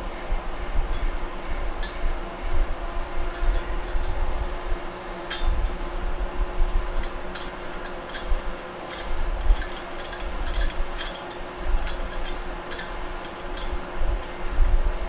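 Light metallic clinks and ticks, scattered and irregular, as a valve spring and its retainer are worked onto a lawnmower engine's cylinder head by hand. A steady low hum runs underneath.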